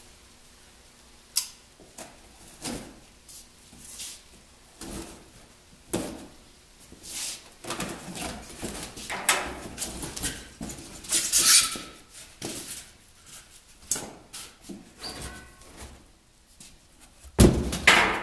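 Cardboard box being opened and unpacked by gloved hands: flaps and contents rustling and scraping, with scattered light knocks. A louder thump near the end as a piece is set down on the workbench.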